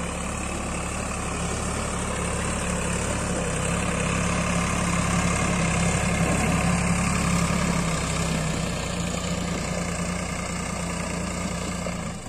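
Sonalika tractor's diesel engine running steadily as it pulls a loaded paddy trailer up a slope, growing louder towards the middle as it passes and then easing off, with a drop just before the end.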